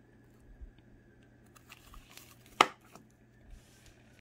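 Light handling of shrink-wrapped merchandise with small faint clicks, and one sharp knock about two and a half seconds in, over a low steady hum.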